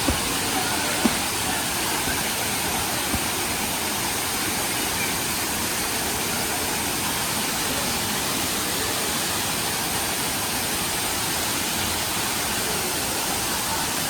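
Waterfall: a steady, unbroken rush of falling water, with a couple of faint knocks in the first second.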